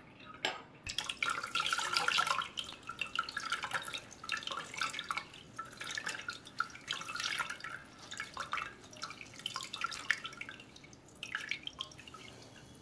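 Water and whey dripping and trickling out of a muslin-wrapped bundle of fresh paneer curds as it is gathered and squeezed by hand over a perforated steel colander. The dripping starts about a second in and goes on unevenly, with the wet cloth being handled.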